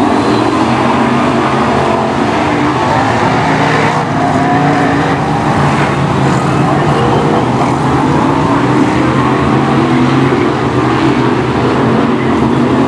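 Several BriscaF1 stock cars' V8 engines running together around the track, a continuous, dense engine noise with no single car standing out.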